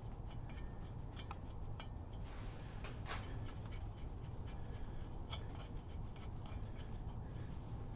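Faint, scattered light metallic clicks and rubbing as head bolts are spun down by hand onto the studs of a Harley Twin Cam cylinder head, over a low steady hum.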